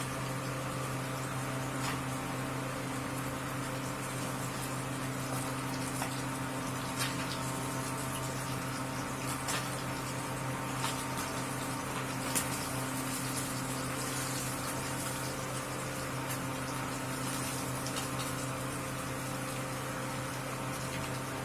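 Fish steaks shallow-frying in hot oil in an iron kadai: a steady sizzle with a few sharp pops or clicks scattered through, over a steady electrical hum from the induction cooktop.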